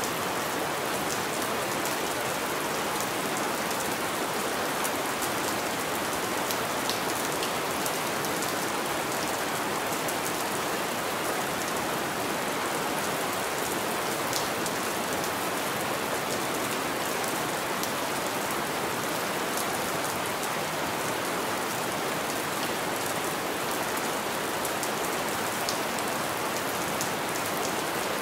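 Steady rain on a window: an even hiss of rainfall with scattered sharp drop ticks against the glass.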